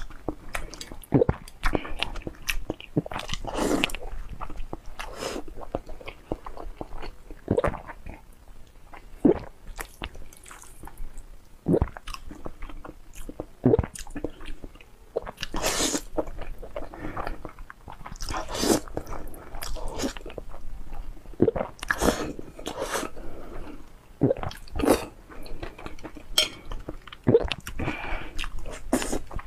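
A woman slurping and chewing spicy instant noodles close to a clip-on microphone. Frequent short wet mouth clicks and smacks, with louder slurps every few seconds.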